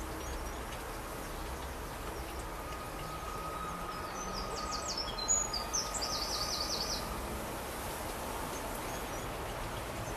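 A blue tit singing once about halfway through: a few high, thin notes followed by a quick trill, over steady outdoor background noise.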